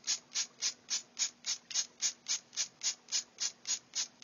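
Vacuum pump working in a steady rhythm of short hissing strokes, about three to four a second, drawing the air out of a sealed jar. The battery sits underwater in the jar, and the vacuum pulls air out of its cells so that water can take its place.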